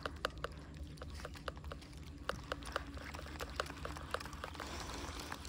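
Spinning reel being cranked to retrieve a lure, giving a run of quick sharp clicks about four to five a second over a low steady rumble.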